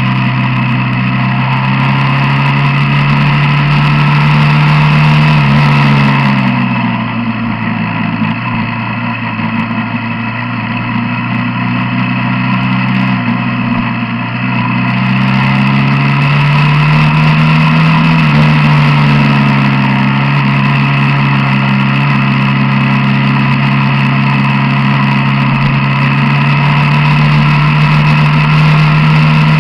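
Quad bike engine running under way. Its note drops as it eases off about six seconds in, then climbs again as it speeds up after about fifteen seconds.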